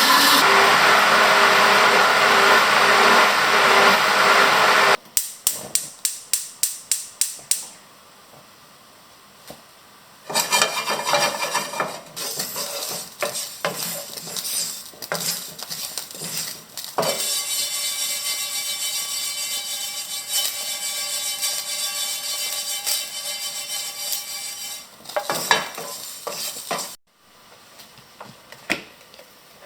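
Kitchen food-preparation sounds: a blender runs loudly and cuts off abruptly about five seconds in, followed by a quick run of clicks about three a second. Then utensil stirring and scraping in a pot or bowl, and a steady hiss for several seconds.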